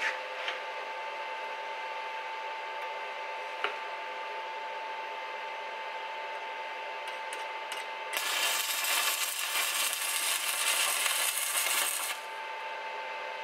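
Stick (MMA) arc welding: the arc crackles and sizzles for about four seconds, starting about eight seconds in and cutting off suddenly. Before it there is only a steady hum and a single click.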